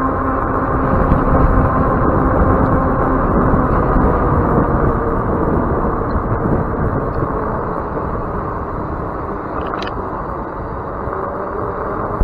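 Wind rushing over the microphone of a bicycle moving along an asphalt path, mixed with tyre noise, with a faint steady hum underneath and a brief tick near the end.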